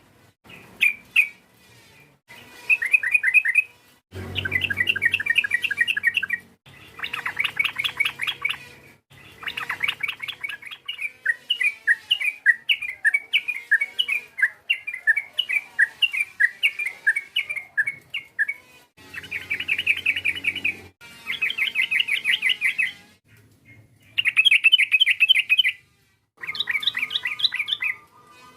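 Yellow-vented bulbul (trucukan) singing in bursts of rapid, chattering notes, each burst a second or two long with short pauses between. In the middle there is a longer run of separate, spaced notes.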